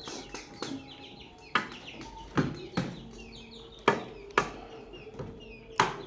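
Irregular sharp taps or knocks, about one every half second to a second, with faint small-bird chirps in the background.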